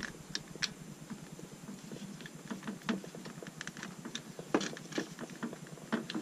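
Hitachi electric drill's chuck being turned by hand to clamp a plastic cleaning rod, with irregular small clicks and scrapes from the chuck sleeve and jaws. The drill motor is not running.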